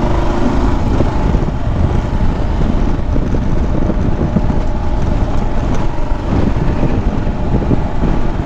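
Motorcycle engine running steadily while riding, with wind rumbling on the rider's microphone.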